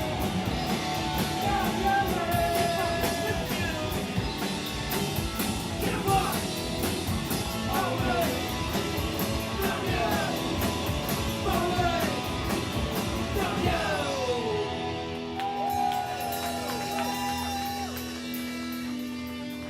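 Live rock band playing, with drums, bass and electric guitar; the lead line slides and bends between notes. About 14 seconds in the drums stop and held chords and a long sustained note ring on.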